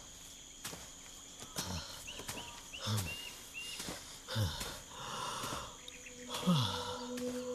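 Soundtrack ambience of animal-like sounds: four low, falling groans spread through the clip and a run of short high chirps in the middle, over scattered clicks and hiss. A steady low drone comes in near the end.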